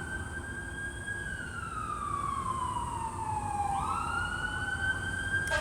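Fire engine siren on the wail setting. It falls slowly in pitch for about three seconds, then sweeps quickly back up near the end and holds high.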